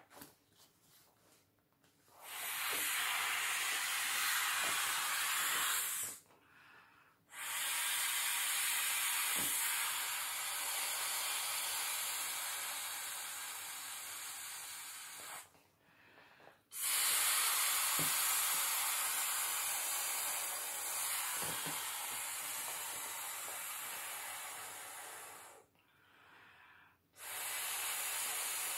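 Breath blown by mouth into the valve of an inflatable plastic paddling pool: long, steady rushing blows, four in all, with short quiet pauses between them to breathe in. The first blow starts about two seconds in, and the last runs on past the end.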